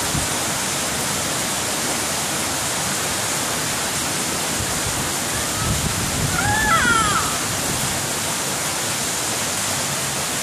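Steady, loud hiss throughout, with a baby's brief high babbling squeal about two thirds of the way through.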